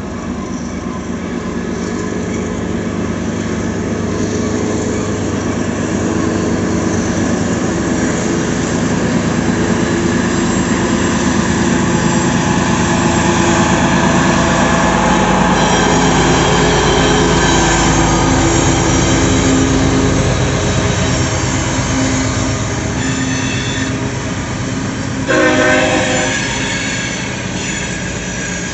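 Freight train cars rolling past, a steady rumble and clatter of wheels on rail that grows louder toward the middle of the pass and eases off again. Near the end a locomotive horn gives one short blast.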